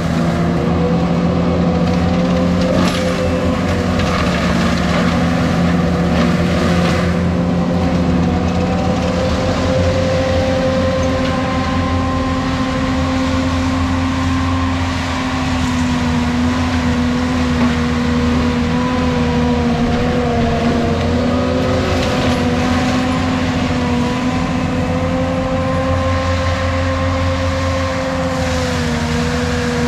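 ASV RT-120 compact track loader with a Fecon forestry mulching head, its engine and mulcher running steadily at high speed while it tracks over the cleared ground. The pitch sags slightly and recovers now and then under load, with a few brief clatters.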